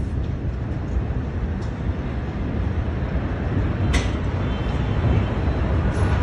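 Steady low rumbling noise of wind buffeting a phone's microphone outdoors, with one sharp click about four seconds in.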